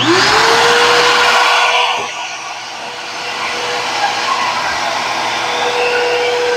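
Shop vac switched on: its motor spins up within a moment and then runs steadily, a constant motor tone over the rush of air.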